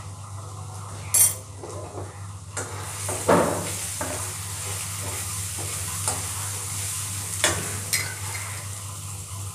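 Onion stuffing frying in a metal kadhai while being stirred with a spatula, sizzling from about a third of the way in, with four sharp knocks of the utensil against the pan.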